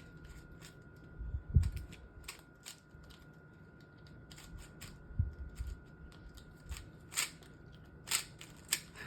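GAN 11 M Pro speed cube being turned fast during a solve: quick, irregular clicking of the layers, with two low thumps, the first about a second and a half in and the louder of the two.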